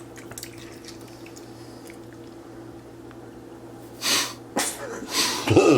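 A quiet stretch with a faint steady hum, then two sharp sneezes about a second apart near the end.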